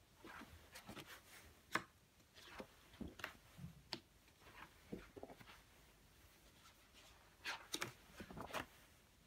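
Pages of a large wallpaper sample book, vinyl on a non-woven backing, being handled and turned by hand: faint rustling and soft flaps of the stiff sample sheets, with one sharper slap of a page about two seconds in and a quick run of rustles near the end.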